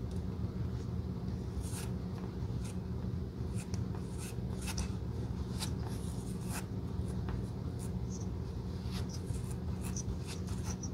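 Metal spatula scraping and smearing tacky black glue across a Birkenstock sandal's cork-and-rubber sole: an irregular run of short scrapes and small sticky clicks over a steady low hum.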